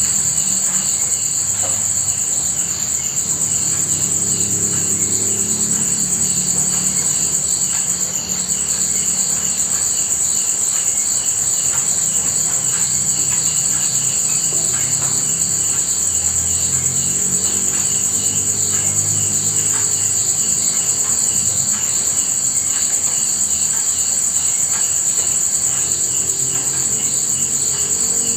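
Night insect chorus, crickets trilling: a steady high-pitched trill with faster pulsing calls just below it, over a low, uneven background.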